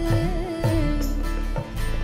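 A live Indian devotional song. A woman's voice holds a long, slightly falling note over a percussion ensemble that includes a mridangam and a frame drum, with deep drum beats that bend in pitch.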